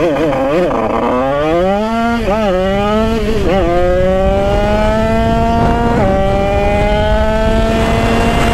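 Derbi-based 80cc Italkit two-stroke engine at full throttle, accelerating hard from almost a standstill. Its pitch climbs through the gears with three gear changes, about two, three and a half and six seconds in. The engine eases off right at the end.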